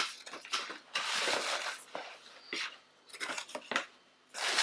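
Rustling and crinkling of shredded brown paper packing as hands dig through it in a cardboard box, in several separate bursts with short pauses between. A short sharp knock right at the start.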